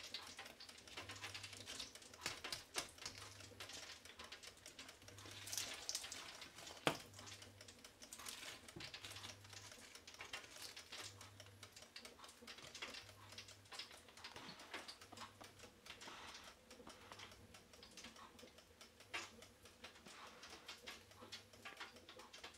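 Faint scattered clicks and light crackles of a hand handling crisp fried chicken on a paper-towel-lined steel platter, with one sharper click about seven seconds in. A low hum pulses on and off about every two seconds underneath.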